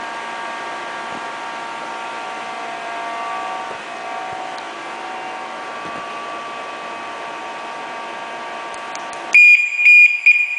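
Scooter alarm unit giving two loud, high beeps and then a few shorter chirps near the end, the signal of the remote keyless start being triggered on a Suzuki Burgman 125. Before the beeps there is a steady hum with several faint tones.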